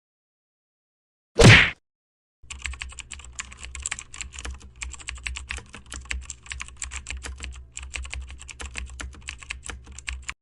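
Typing on a computer keyboard: a rapid, irregular run of key clicks over a low hum, starting about two and a half seconds in. It is preceded by one short, loud burst of sound about a second and a half in.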